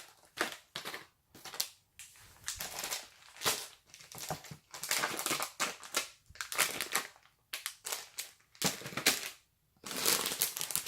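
Plastic snack wrappers crinkling as packets are handled, in irregular bursts with short pauses between them.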